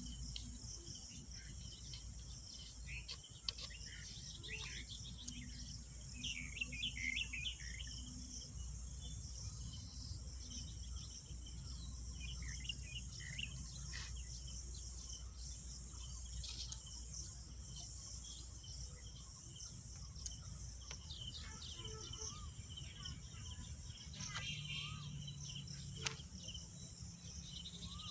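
Insects chirring steadily in a high band, with birds chirping now and then over it; a faint low wind rumble underneath.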